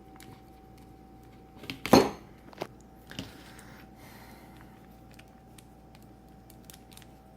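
Plastic clicks and one sharp clack about two seconds in, with a couple of lighter clicks after, as a 1995 Toy Biz Blizzard action figure is twisted at the waist to work its punching action.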